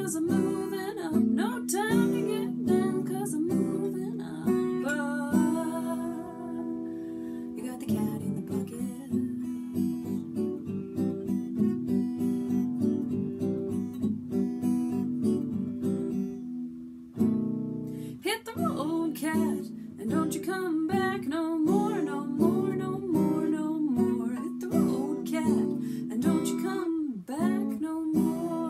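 Acoustic guitar strummed in a steady rhythm, with a woman's voice singing along in parts. The strumming breaks off briefly a little past halfway and then starts again.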